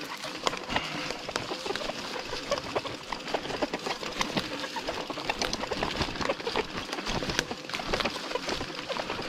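Bicycle clattering and clicking as it is moved over rough forest ground, with many small irregular knocks and ticks.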